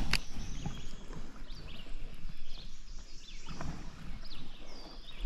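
Small birds chirping in short, quickly rising and falling calls over a low steady rumble, with two sharp knocks, one just after the start and one about three and a half seconds in.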